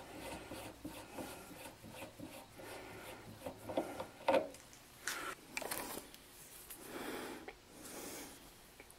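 Faint handling noise: a hand rubbing and turning a metal drill chuck and its arbor, with light scrapes and clicks of metal parts.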